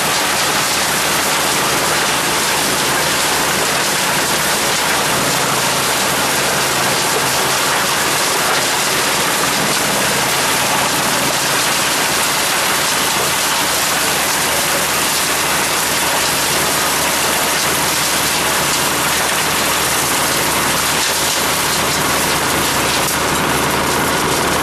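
Skorpion 350 EBG wood chipper running, a loud, steady, hissing noise with an engine hum beneath it.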